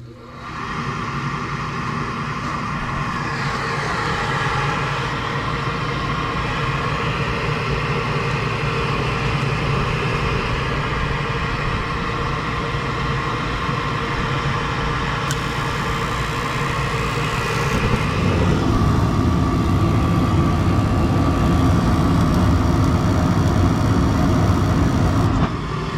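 Lennox gas package unit starting on a jumpered call for heat: a motor spins up within about a second and runs steadily with a thin whine. About 18 seconds in a deeper, louder rumble joins and carries on.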